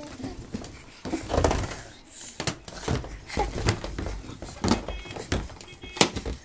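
Latex balloons being grabbed and mouthed by a baby: scattered soft thumps, knocks and rubbing rustles.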